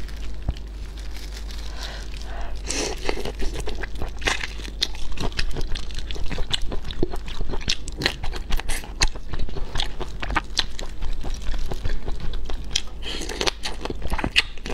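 Close-miked biting and chewing of whole shell-on shrimp in a lemon and chili marinade: repeated irregular crunching and crackling of the shells.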